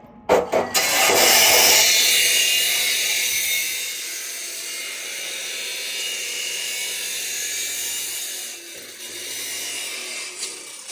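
A few knocks, then a handheld power tool runs against metal or wood for several seconds with a harsh hiss. It is loudest at first, then settles to a steady level with a brief dip near the end.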